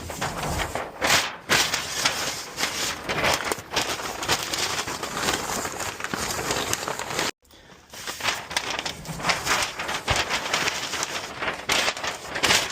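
Packing paper being crumpled and stuffed into a cardboard box around a vacuum: a dense, irregular crackling and rustling, broken by a moment of silence about seven seconds in.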